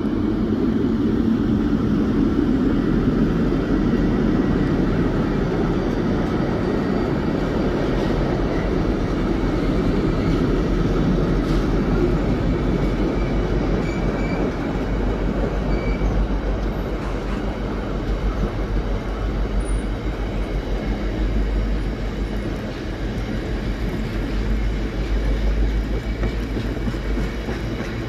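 Diesel freight locomotive passing with its engine running loudest in the first few seconds, then a long rake of tank wagons rolling by with a steady, pulsing rumble of wheels on the rails.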